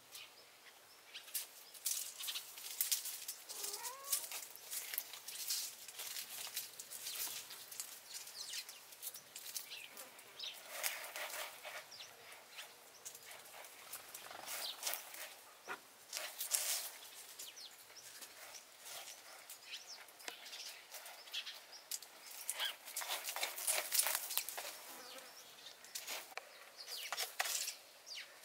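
A kitten's paws scratching and raking sand in a plastic litter tray: short rasping scrapes that come in irregular flurries.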